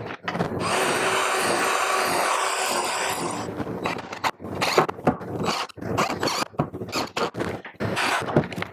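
A small handheld power tool runs steadily for about three seconds, then stops. Irregular knocks and scraping on wood follow for the rest of the time.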